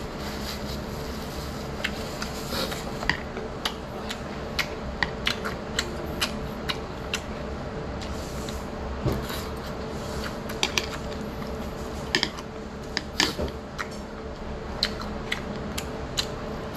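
Eating sounds: metal chopsticks clicking and tapping against a plate of tangsuyuk (battered sweet-and-sour pork) in short irregular ticks, with chewing, over a steady background hum.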